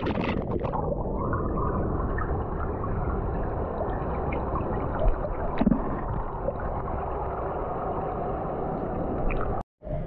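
Splashing as the camera plunges under, then muffled underwater sound: a steady rumbling rush of moving water with scattered gurgles and small clicks. It cuts out for a moment just before the end.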